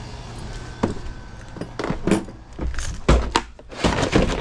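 A run of knocks and clatter as a Makita cordless vacuum is carried into a service van and set among tools on its metal shelving, with a jangle of small metal items. A single knock comes about a second in, then a quicker cluster of knocks near the end.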